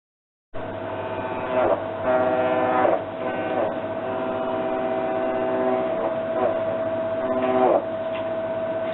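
Hitachi BD-V9500 Big Drum drum-type washer-dryer making an abnormal noise: a steady high whine, with louder squeals of several tones swelling about a second and a half in, again from two to three seconds in, and near the end. It starts about half a second in.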